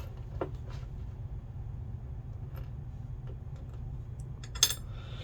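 Small metal clicks of a lock pick and tension tool working in a lock cylinder, with one sharp, louder click near the end, over a steady low hum.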